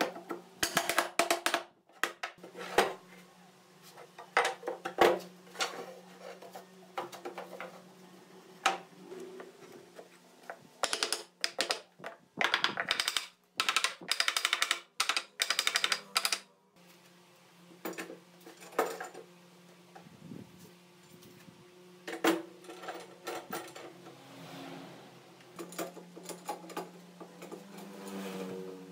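Wooden mallet knocking pine rails into the table legs: scattered sharp knocks, with runs of rapid tapping midway, over a faint steady low hum. Lighter clicks of metal pipe clamps being set come near the end.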